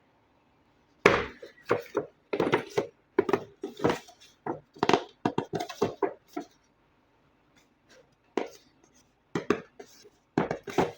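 Hands unboxing a toy RC vehicle: an irregular run of sharp taps, clicks and rustles of the toy and its packaging being handled, starting about a second in, thinning out in the middle and picking up again near the end.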